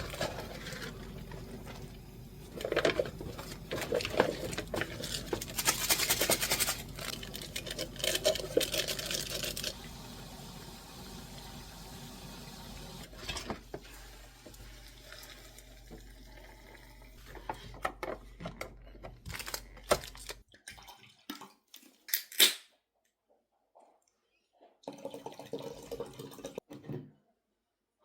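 Household kitchen sounds: water and clinking dishes over a steady low hum, which stops about 20 seconds in, followed by a few sharp clicks and a short rustle near the end.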